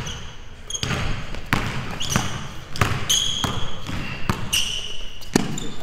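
A basketball dribbled on a hardwood gym floor, a steady bounce roughly every two-thirds of a second, with short high sneaker squeaks on the boards between bounces.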